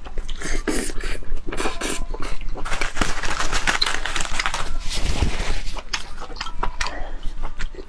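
Close-miked chewing of braised pig tongue: many quick, irregular clicks and squelchy mouth sounds, thickest in the middle.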